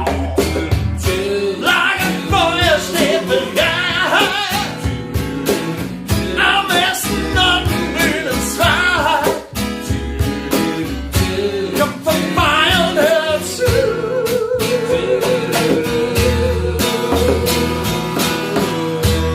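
Acoustic guitar and singing: a song performed with a sung melody, ending in one long wavering held note from about two-thirds of the way in.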